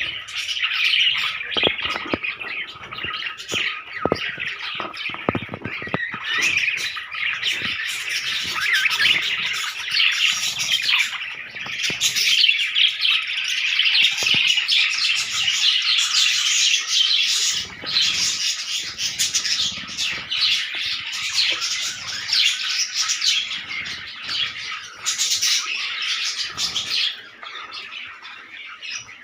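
A flock of budgerigars chattering, a dense continuous twittering of many overlapping chirps and squawks that thins out near the end.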